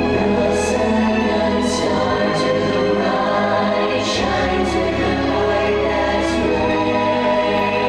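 Music: a choir singing slow, held chords.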